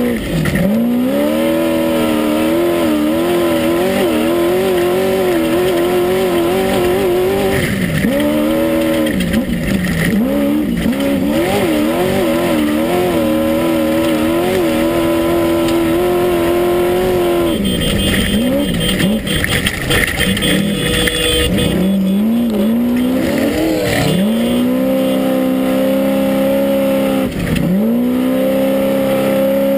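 Class 1 unlimited off-road buggy's engine heard from inside the car at race pace. The revs rise and fall with the throttle and drop sharply several times as the driver lifts off. Near the end they hold steady and high, all over a steady rushing noise.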